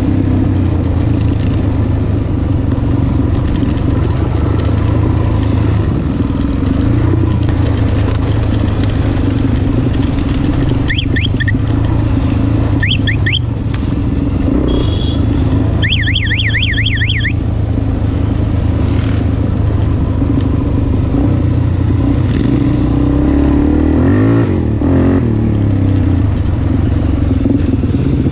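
Motorcycle engine running steadily while riding, with a dip and rise in engine pitch near the end. A few short, high, fast warbling chirps sound in the middle.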